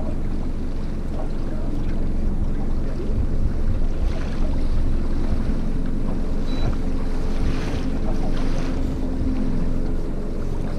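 Wind buffeting the microphone over a boat motor's steady hum, with water noise from the river.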